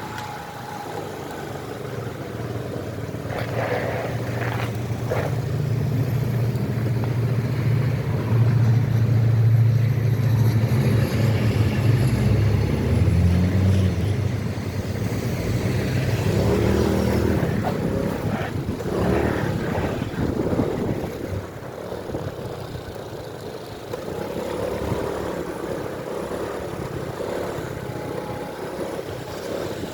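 Motor traffic and road noise heard from a moving motorcycle: a low engine note builds to a peak about ten seconds in, shifts in pitch a few seconds later, then fades.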